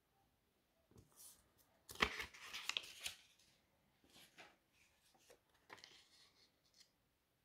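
Euro banknotes rustling and crinkling as one note is lifted off a tabletop and another is laid down, in short papery bursts with a few light clicks, loudest about two to three seconds in.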